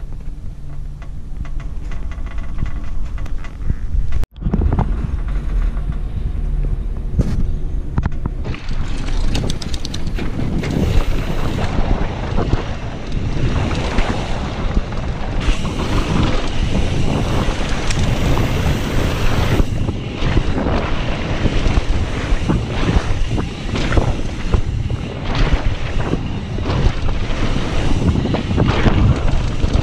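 Wind buffeting the microphone of a rider-worn camera on a fast mountain bike descent down a dirt trail, with the bike rattling and clattering over bumps in many short knocks. The first few seconds are a steadier low rumble, which ends in a brief dropout about four seconds in.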